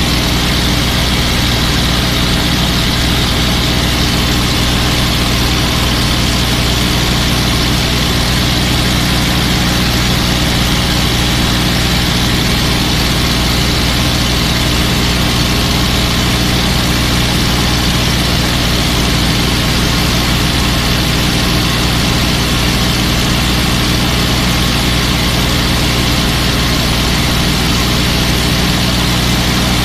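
P-51 Mustang's V-12 piston engine running steadily in cruise, heard from inside the rear cockpit with a constant rush of wind noise over it.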